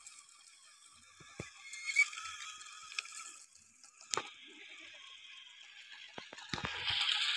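Faint whir of a toy tractor's small electric motor and plastic gears, with a few scattered clicks. The sound grows louder near the end.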